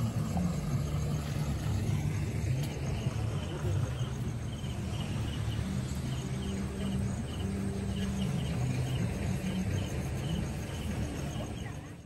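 Crickets chirping in short, evenly repeated pulses over a low, steady hum.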